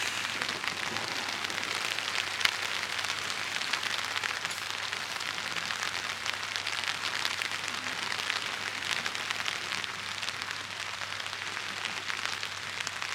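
Steady rain falling, a continuous hiss flecked with the fine ticks of individual drops, with one louder drop tick about two and a half seconds in.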